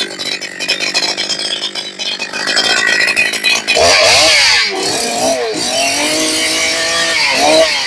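Holzfforma G288 90cc-class two-stroke chainsaw revving up and bucking a hardwood log, its engine pitch dipping and wavering under load, then holding steady before dropping back near the end. It is running rich, still untuned on its second tank of break-in.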